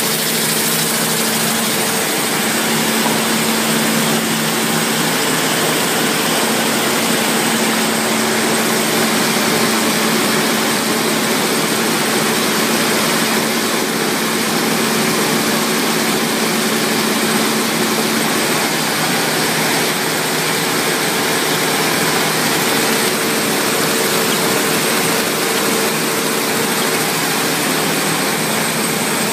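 Bobst Media folder-gluer running at production speed, carrying envelope blanks on its belts at about 48,000 an hour: a loud, even mechanical rush with a constant low hum and a thin high whine.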